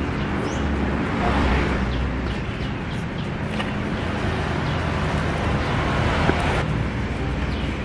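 Steady outdoor background noise with a low rumble, typical of road traffic, with a few short bird chirps.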